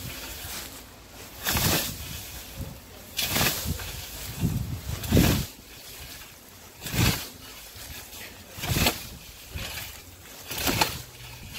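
Hand scythe swung through tall grass and green fodder, each stroke a brief swishing cut, about one every two seconds, six strokes in all.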